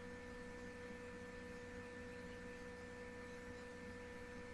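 Faint steady electrical hum made of a few pure tones, over low hiss.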